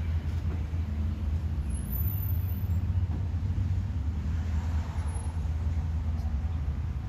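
Steady low rumble of outdoor background noise at an even level; the rooster does not crow.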